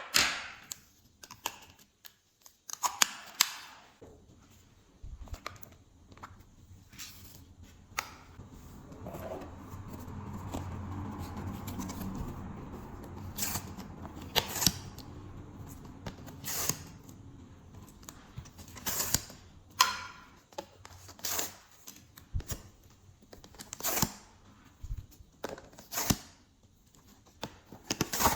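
Glossy slime being squished and worked by hand, with sharp clicking and popping sounds scattered throughout and a longer stretch of soft squishing in the middle.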